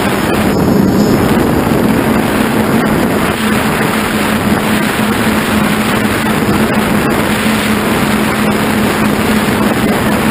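Onboard sound of an FPV model aircraft in flight: its motor and propeller drone at a steady pitch, with wind rushing over the onboard camera's microphone.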